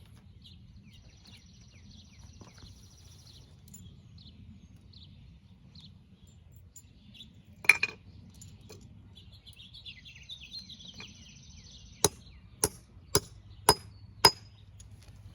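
Hammer tapping a metal adapter onto the lock's cam post: one sharp knock about halfway through, then five quick sharp taps near the end, a little under two a second. Birds chirp faintly in the background.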